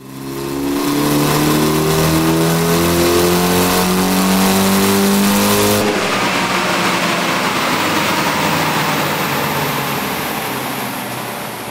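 Mitsubishi Lancer Evolution VI's turbocharged four-cylinder engine making a full-throttle dyno pull, its pitch rising steadily for about six seconds. The engine note then cuts off suddenly, leaving a rushing noise that slowly fades.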